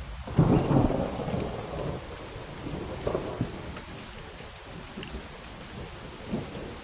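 A thunderclap about half a second in that rumbles away over a second or so, with a fainter rumble about three seconds in, over steady falling rain.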